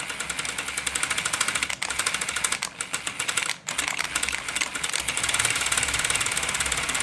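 Cordless impact driver running at low speed to turn a filament respooler, a fast, even clicking whir, cutting out briefly twice, about two and three and a half seconds in.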